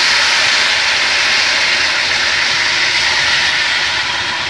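Chicken pieces frying in hot lard in an aluminium pot, hissing and sizzling loudly as water is poured in from a kettle and flashes to steam. The hiss eases slightly near the end.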